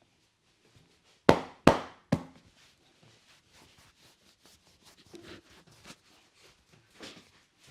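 Three sharp hand slaps about half a second apart, the third quieter, struck by a masseur during a head massage. Faint rustles and light taps of hands on hair and skin follow.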